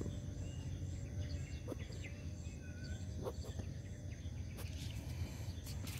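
Quiet field ambience: a steady low rumble with a few faint, short bird chirps and a faint high insect trill pulsing evenly.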